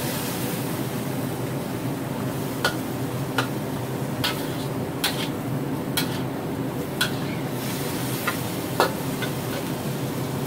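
Metal spatula scraping and clicking against a wok as squid, pork and vegetables are stir-fried, with sharp knocks roughly once a second over a steady sizzle.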